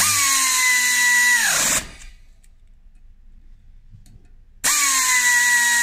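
Parkside pneumatic air ratchet running in two bursts of about two seconds each while driving Torx disc-brake rotor bolts: a loud air hiss with a steady whine that falls in pitch as each burst ends.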